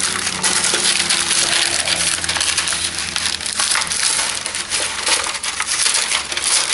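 Parchment paper and a thin aluminium foil pan crinkling and crackling as hands press and fold the paper into the pan, a busy irregular crackle that keeps going.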